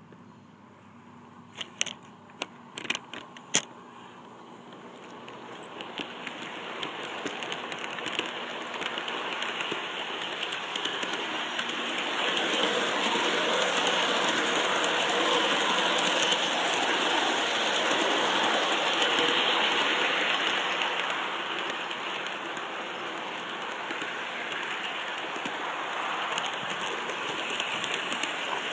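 G-scale model train rolling along its garden track, heard from a camera riding on it: a steady rushing rattle of wheels and drive that builds over the first several seconds and is loudest in the middle. A few sharp clicks come shortly after the start.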